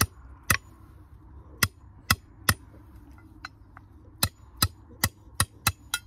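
Hammer blows tapping flat the end of a swing's handle fitting so it will fit onto the bolt: about a dozen sharp strikes, two or three a second, with a short lull of lighter taps around the middle.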